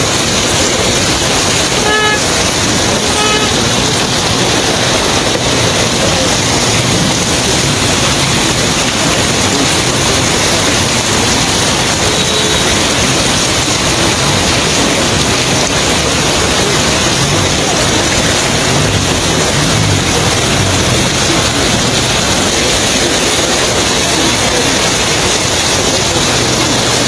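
Loud, steady rushing noise of street traffic, with a vehicle horn tooting twice, about two and three seconds in, and once more faintly later.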